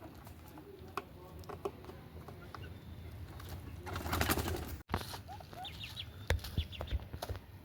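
Indian ringneck parrot making soft calls and short chirps, with a louder noisy burst lasting about a second around four seconds in, then quick repeated chirps.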